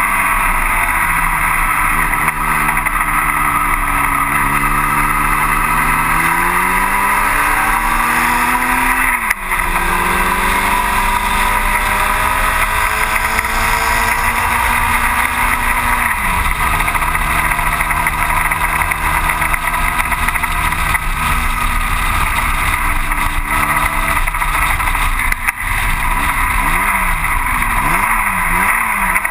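A 1960 Cooper T-52 Formula Junior's BMC A-series four-cylinder engine at racing speed, heard onboard over heavy wind noise on the microphone. The revs climb through the gears with brief breaks at the shifts, hold steady along a straight, and near the end rise and fall quickly several times as the driver blips the throttle.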